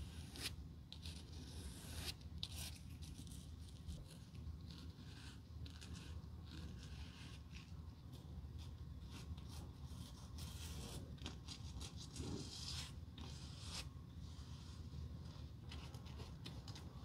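Stiff-bristled glue brush scratching and scrubbing over a piece of leather as it spreads adhesive, in short irregular strokes.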